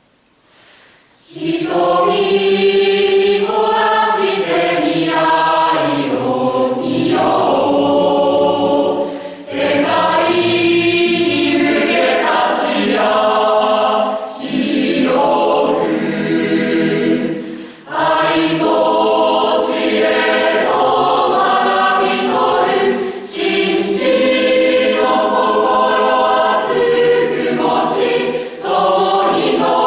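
A choir of school students singing in long held phrases, with short breaks for breath every few seconds. It starts about a second and a half in, after a brief quiet.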